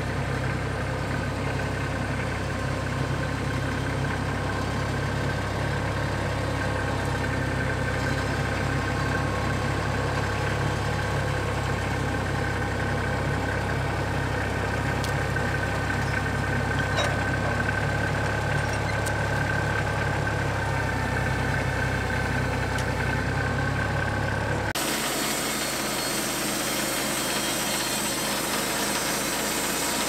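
Tractor engine idling steadily. About 25 seconds in it cuts abruptly to a different, brighter machine noise from the Wood-Mizer LT15 Wide band sawmill running.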